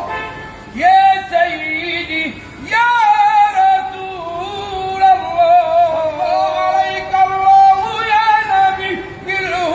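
A man singing Islamic praise of the Prophet (madih) in a high, ornamented voice, drawing out long wavering melismatic notes with short breaths between phrases.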